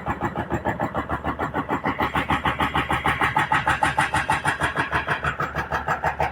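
Excavator's diesel engine running with a steady rapid pulsing, about six beats a second, getting a little louder in the middle.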